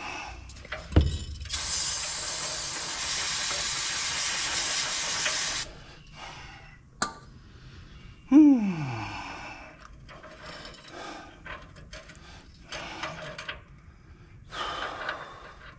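Hand work on a tractor's bolts: a thud about a second in, then a steady hiss lasting about four seconds, a sharp click, a short falling groan, and light clinks and scrapes of tools.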